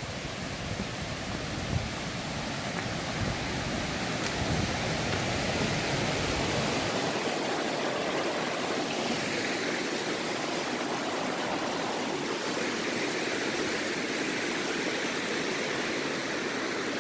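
Small forest stream rushing white over rocks, a steady rushing noise that swells over the first few seconds. A low irregular rumble on the microphone drops away about seven seconds in.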